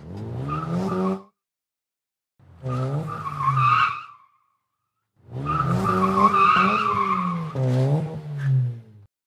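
Car engine revving and tyres squealing in three bursts, the last one longest, each cut off into silence: an intro sound effect.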